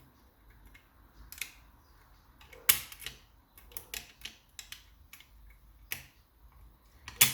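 Metal lock-picking tools clicking and scraping inside an ERA Invincible lever mortice lock as the levers are worked through. An irregular run of small sharp clicks, with a louder one about three seconds in and another near the end.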